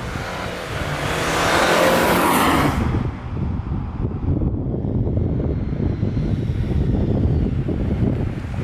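A motor vehicle running and moving, its engine and exhaust droning under road and wind noise, with a loud rushing swell about one to three seconds in.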